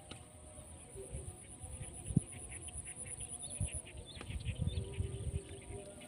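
Open-field ambience: small birds chirping over a steady high insect drone, with wind buffeting the microphone.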